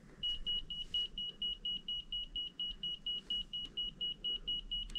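Handheld EMF meter beeping its alarm in a fast, even string of short high beeps, about seven a second, starting a moment in. The alarm signals a high electromagnetic field reading.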